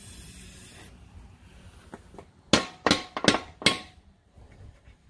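Four hard hammer blows about 0.4 s apart, starting about two and a half seconds in, each with a metallic ring: steel striking a nut threaded onto a tight wheel-centre stud to drive it out of a tractor's rear wheel. A faint hiss in the first second.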